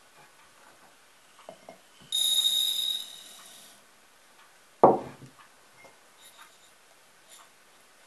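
Dry buckwheat poured from a porcelain cup into an earthenware pot: a bright, high rattle with ringing tones that lasts under two seconds. About five seconds in there is one clunk of crockery being set down.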